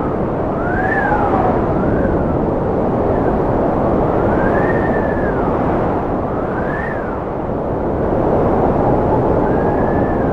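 Strong wind blowing with a steady rushing noise, over which a howling whistle rises and falls in pitch several times.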